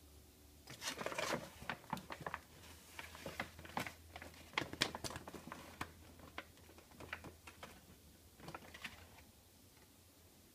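A plastic measuring scoop being handled and filled with gainer powder: irregular rustling with sharp clicks and knocks, busiest early on, then thinning out near the end.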